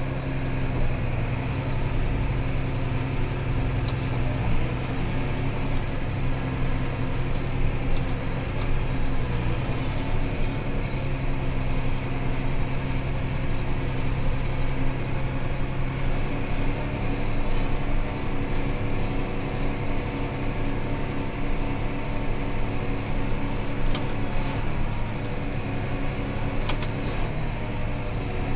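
John Deere 8210 tractor's six-cylinder diesel engine running steadily under way, heard from inside the cab. The engine note shifts slightly about halfway through as the speed changes, with a few faint clicks.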